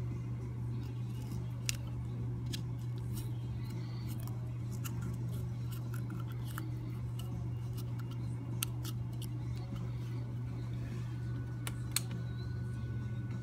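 Small clicks and snips of handwork on a plastic speedometer housing as pieces of tape are cut and pressed in place, a few sharper clicks standing out, over a steady low hum.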